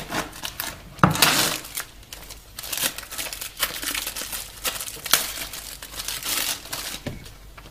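Plastic shrink wrap being pulled off a phone box, crinkling and crackling in irregular bursts.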